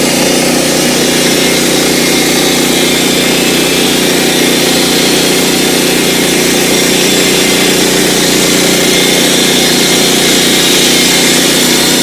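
Portable band sawmill's engine running steadily under load as the blade cuts along the log.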